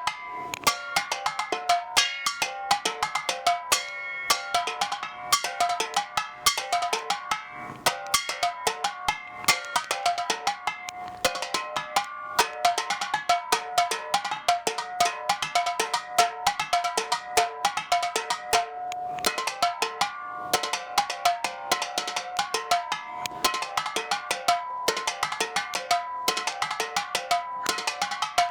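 Dented empty Heineken mini-keg cans played as a small metal xylophone, struck with sticks in a quick, continuous pattern of several hits a second. Each can gives its own short, ringing metallic pitch.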